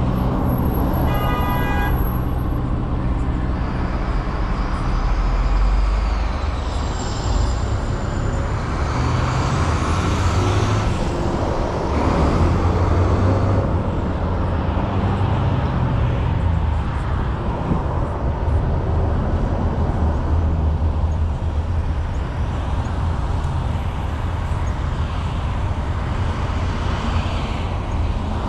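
Road traffic running steadily past on a busy city street, with a short high tone about a second in.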